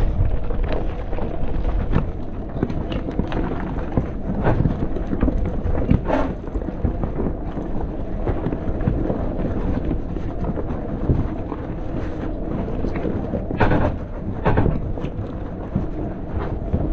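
Rivian R1T electric pickup driving over a rough off-road trail: a steady low rumble from tyres and suspension, broken by sharp knocks and clunks, the loudest about six seconds in and twice close together near fourteen seconds in.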